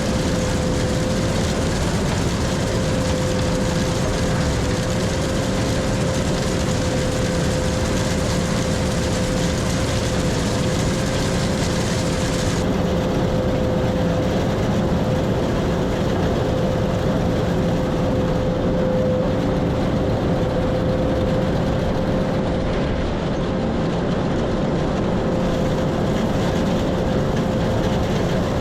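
Combine harvester running steadily while cutting soybeans, a constant machine drone with a steady whine above it; the higher hiss thins out about halfway through.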